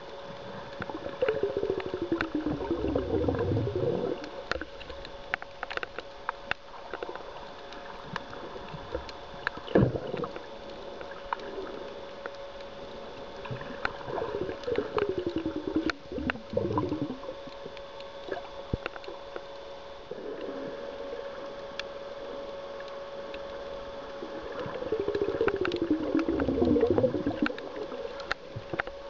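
Sound recorded underwater over a seagrass bed: a steady hum with scattered crackling clicks, and three bouts of gurgling whose pitch falls, about a second in, midway and near the end.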